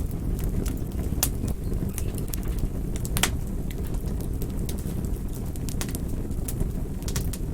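Campfire burning: a steady low rumble of flames with scattered sharp crackles and pops from the burning wood, the loudest pops about a second in and about three seconds in.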